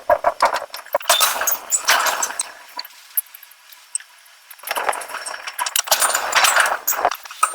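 Rapid metallic clinking and rattling of metal on metal, thinning to a quieter stretch a few seconds in before the clatter starts again.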